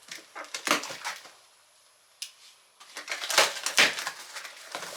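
Cardboard box and plastic packaging being opened and rummaged through: irregular rustling and scraping strokes, a near-quiet pause of about a second and a half in the middle with a single click, then more rustling.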